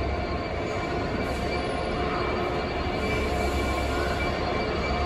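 A DRS Class 66 diesel locomotive, whose EMD two-stroke V12 engine runs at low power as it creeps along on its own, gives a steady deep throb. Faint, steady whining tones sit over it.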